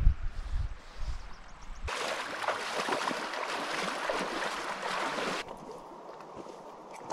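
Wind rumbling on the microphone, then a loud steady rush of creek water that cuts in about two seconds in and cuts out abruptly about three and a half seconds later, leaving a fainter flow.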